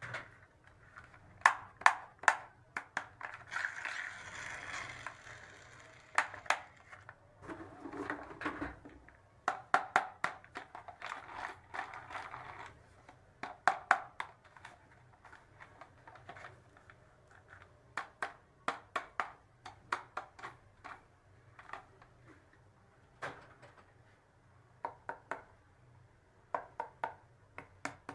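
Small plastic toy pieces clicking and tapping as they are handled and set down, with a couple of short stretches of rustling about four and eight seconds in.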